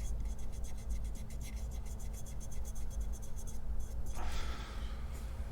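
Pencil and eraser working on a turned tawa-wood surface: rapid scratchy strokes as a mis-drawn line is rubbed out and redrawn, with a denser rubbing patch about four seconds in, over a faint steady hum.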